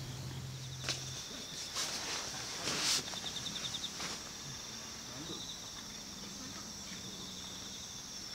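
Insects chirping in the background, a steady high hiss with short rapid trills about three and five seconds in. A few brief rustles come in the first half.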